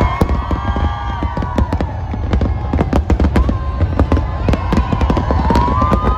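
Aerial fireworks display going off, with many bangs and crackles in quick succession.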